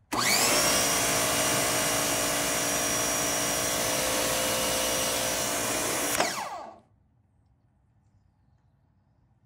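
Active electric pressure washer's motor and pump starting abruptly, running with a steady whine for about six seconds, then winding down to a stop. The machine has a surging fault that the owner traces to a leak inside the pump.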